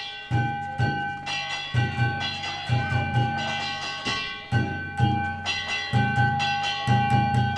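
Danjiri hayashi: a large taiko drum struck in short groups of beats while small hand gongs (kane) ring steadily over it.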